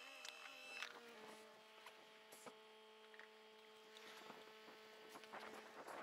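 Near silence: a faint steady hum with a few light ticks.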